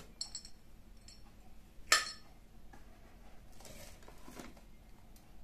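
Stainless steel mixer-grinder jars clinking against each other as they are handled in their carton: a few short ringing clinks, then one sharp knock about two seconds in, and a soft rustle of the plastic wrapping later on.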